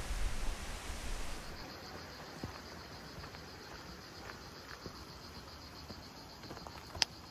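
Wind buffeting the microphone for about the first second and a half, then a steady high insect trill with faint footsteps on the trail, and one sharp click near the end.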